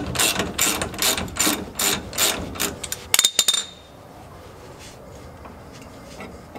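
Socket ratchet wrench clicking in quick, even strokes, about four a second, as it loosens the lower mounting bolt of a pickup's rear shock absorber. Just past halfway it ends in a few sharper metallic clicks with a brief ring, then stops.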